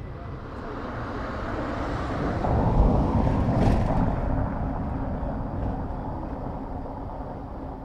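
Luxair Boeing 737 MAX's CFM LEAP-1B jet engines on the runway as the airliner rolls past. The noise swells to a peak about three seconds in, then slowly fades, with a faint steady hum under it in the second half.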